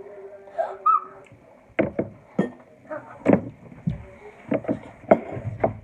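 Irregular knocks and clatter from eating and handling tableware and food at a meal, about a dozen sharp strokes, with a brief high squeak about a second in.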